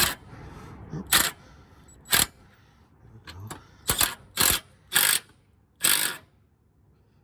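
Impact wrench run in short trigger pulls, tightening the receiver hitch bolts: about seven brief bursts at irregular intervals with quiet gaps between.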